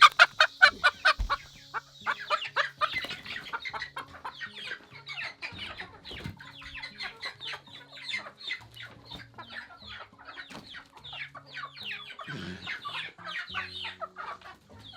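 A flock of young chickens calling with rapid, repeated short peeps and clucks. The calls are loudest and most regular in about the first second, then many birds call over one another.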